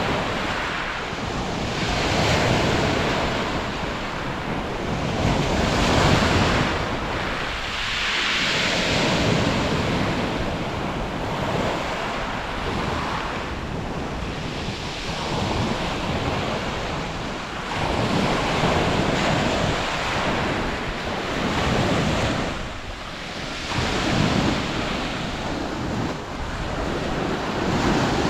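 Sea waves breaking and washing on a beach, the surf swelling and falling back every two to four seconds, with some wind on the microphone.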